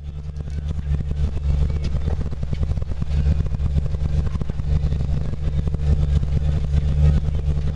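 Snowcat running: a steady low engine drone with a constant fine rattle over it, a little louder after the first second.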